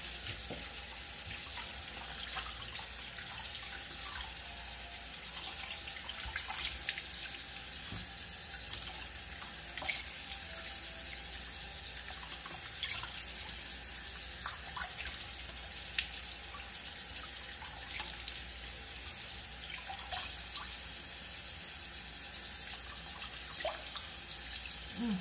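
Bathroom sink tap running steadily while a face is rinsed under it, with scattered short splashes.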